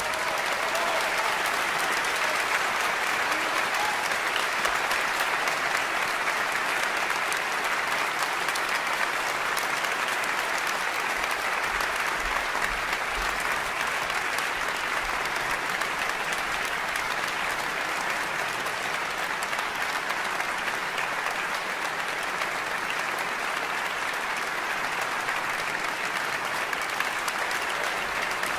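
Concert-hall audience applauding steadily at the end of a piano performance, the clapping even and unbroken throughout.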